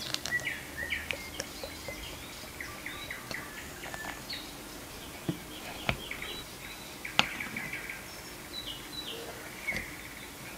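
A metal spoon cutting into a slice of cake in crème anglaise and clinking on a ceramic plate, sharply twice at about six and seven seconds in, with smaller taps, while birds chirp in the background.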